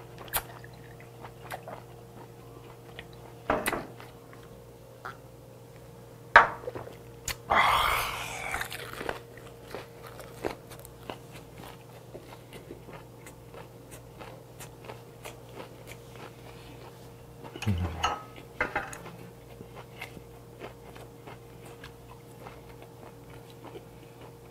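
Close-miked eating: a person chewing a mouthful with many small wet mouth clicks and smacks, and a few louder bursts about a third of the way in and again past the middle. A steady low hum runs underneath.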